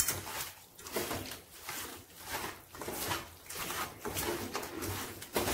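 A hand mixing bone-in chicken pieces through a thick masala marinade of spices, fried onions and shallots in a stainless steel pan, squishing and turning them with repeated strokes about three a second.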